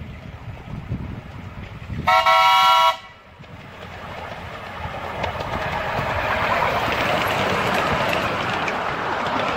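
A single short blast, under a second long, on a 7¼-inch gauge miniature railway locomotive's whistle about two seconds in. After it a rushing noise grows steadily louder.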